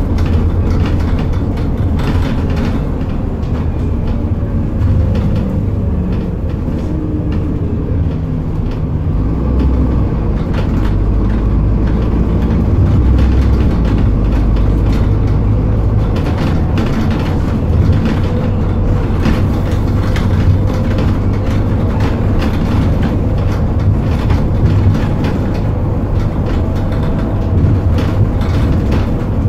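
Scania N230UD Enviro400 double-decker bus heard from on board while under way: its diesel engine and ZF Ecomat automatic gearbox running steadily, with road noise and frequent rattles and knocks from the body.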